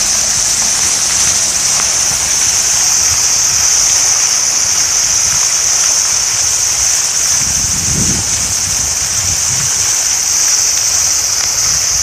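Park fountain's water jet falling and splashing into its stone basin: a steady, even rushing hiss of water.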